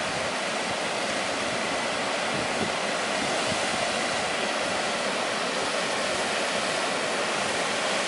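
Small waterfall rushing steadily, an even unbroken wash of water noise.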